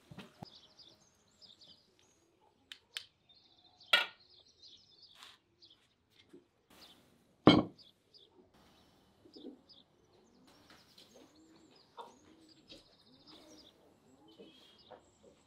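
Small birds chirping with short high calls throughout, and lower clucking or cooing bird calls in the second half. Two sharp knocks stand out, one about four seconds in and a louder one a few seconds later.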